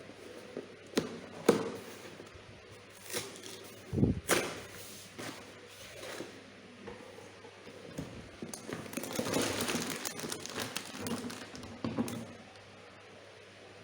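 LEGO Technic plastic pieces being handled: scattered sharp clicks and knocks, then about three seconds of crinkling plastic about two-thirds of the way through, with a last click after it.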